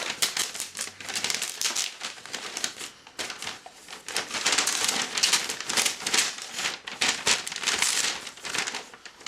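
Plastic packaging crinkling and crackling in rapid, irregular bursts as a lightweight package is handled and opened by hand.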